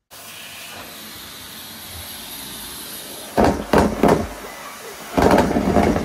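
Numatic Hetty tub vacuum cleaner switched on, its motor starting and running steadily with a faint high whine. About three and a half seconds in, and again near the end, come loud short noisy bursts as deflated balloons are sucked into the floor tool and hose.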